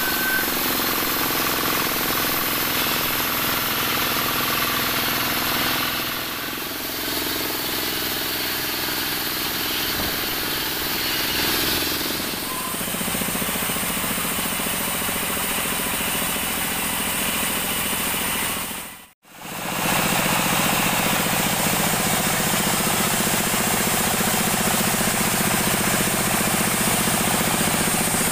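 Large vertical band saw running and sawing acacia logs, a loud, steady machine noise. The sound cuts out for a moment about two-thirds of the way through, then carries on.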